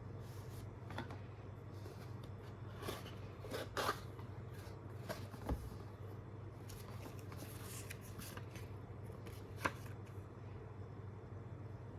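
Hands handling a gaming mouse's packaging: scattered rustles and short taps of cardboard and plastic, with a sharper tap about four seconds in and another near ten seconds, over a steady low hum.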